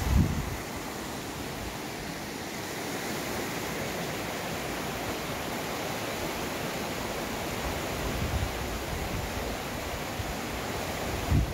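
A shallow, rocky river rushing over stones: a steady hiss of flowing water. A few low bumps, likely wind on the microphone, come about a second in, around eight seconds in, and near the end.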